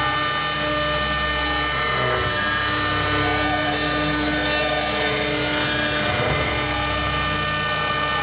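2.2 kW spindle of a 6090 CNC router running steadily while a fine engraving bit cuts solid brass, a constant whine of several steady tones.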